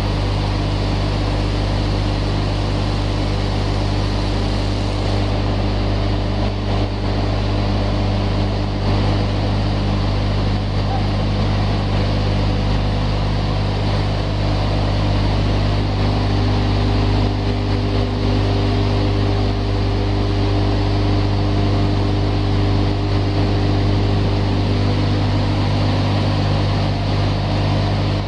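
Animal powder feed production line running: electric-motor-driven feed machinery giving a loud, steady drone with a strong low hum, as feed powder is discharged from the hopper into sacks.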